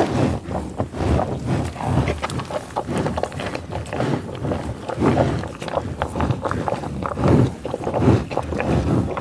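American bison feeding in tall grass: short rustling, tearing and chewing sounds, with low grunts and sniffling breaths now and then, the strongest about five seconds in and again near the end.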